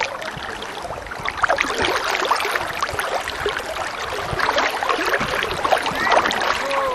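Choppy lake water lapping and splashing close to the microphone, a dense run of small splashes that gets louder about a second in.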